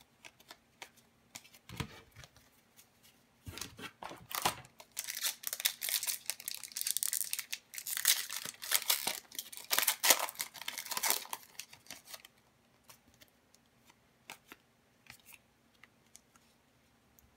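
Foil wrapper of a hockey card pack crinkling and tearing open for about eight seconds, starting a few seconds in. Light clicks of the cards being handled come before and after it.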